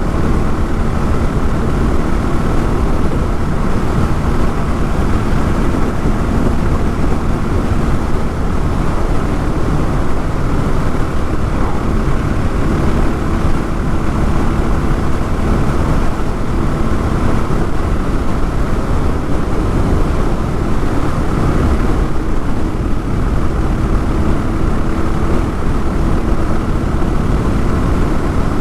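Honda XR650L single-cylinder engine running steadily under way, with rush of wind and road noise over the microphone.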